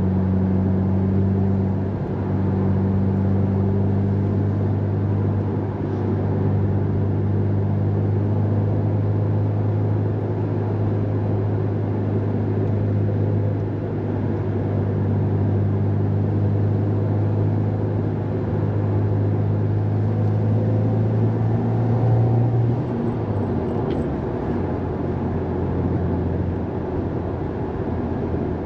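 Subaru WRX STI's turbocharged flat-four engine heard from inside the cabin, holding a steady note at cruising revs over road noise. Near the end the note rises slightly, then drops away as the revs fall.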